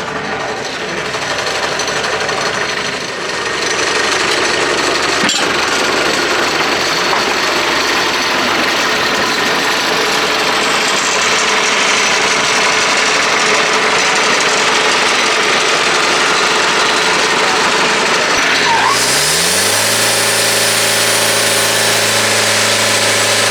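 Loud engine-driven machinery running steadily with a dense mechanical noise. About three-quarters of the way through, a motor winds up in pitch and settles into a steady hum.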